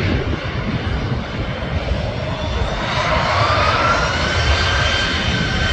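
Airbus A320's twin turbofan engines running over a low rumble. About three seconds in, a whine begins rising in pitch as the engines spool up toward take-off thrust.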